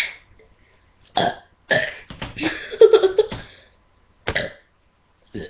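A girl burping after chugging soda pop, several burps in a row, the longest and loudest about three seconds in.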